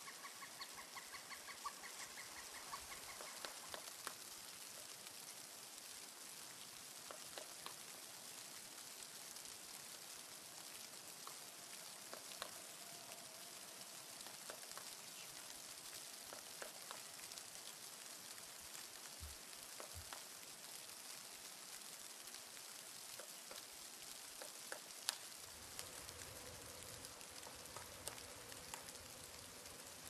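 A pileated woodpecker calls a rapid run of evenly repeated notes, about six a second, that stops about three seconds in. After that there is only a faint, even hiss with scattered small ticks and one sharper tap about 25 seconds in.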